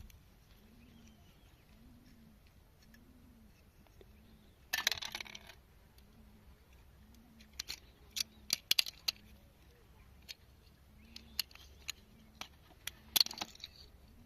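Old mechanical alarm clock being opened up: irregular small metal clicks and clinks of its parts being handled, with a short scraping rattle about five seconds in and the sharpest click near the end.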